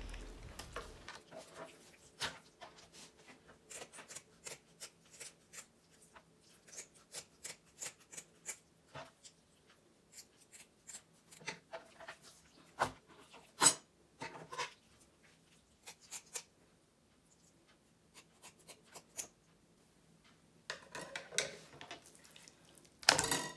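Kitchen scissors snipping through a raw cod's fins, heard as a scattered run of short snips and clicks mixed with the wet sounds of the fish being handled on a plastic cutting board. A single louder knock comes near the end.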